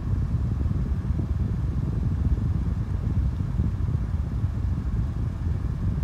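Galaxy 12-inch table fan running steadily: a low rush of moving air with a fluttering rumble. The housing shakes from a blade the owner says is out of whack.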